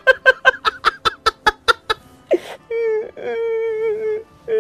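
A man's hearty laugh in rapid pulses that trail off over the first two seconds. It is followed by a sharp breath and a long, held high vocal cry, like laughter tipping into a wail, with a short cry again near the end. It is a performed laugh, an actor demonstrating laughter.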